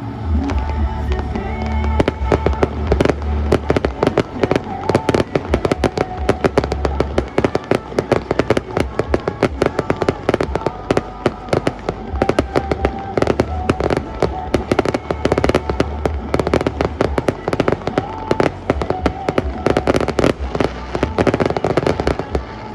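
Fireworks bursting in a rapid barrage, many sharp bangs and crackles a second, over loud music with a deep bass line.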